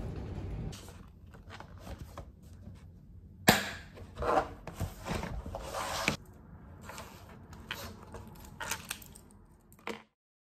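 Clicks and knocks of objects being handled on a desk, with one sharp knock about three and a half seconds in and a run of knocks after it. The sound cuts off suddenly near the end.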